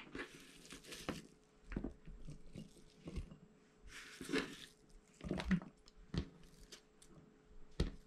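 Serrated kitchen knife cutting through onion on a wooden cutting board: a few separate, irregular crunching cuts and knocks.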